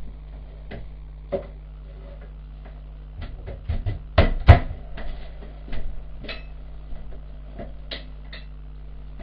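Kitchen wall-cupboard door opened and shut, with the loudest knocks clustered about four seconds in, among lighter clicks and clatter of things handled on the counter. A steady low hum sits underneath.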